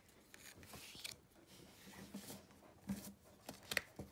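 Pokémon trading cards being handled and slid onto a wooden tabletop: a few brief, soft scrapes and light taps, more of them in the second half.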